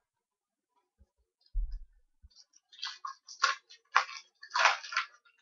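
Trading cards being handled: a soft low bump, then a run of short rustling swishes as cards slide against one another.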